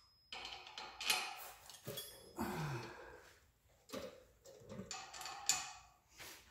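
Hand tools and steel suspension parts clinking and knocking as they are handled, a string of separate metallic clicks and taps with the sharpest near the end. A short falling groan-like tone sounds about two and a half seconds in.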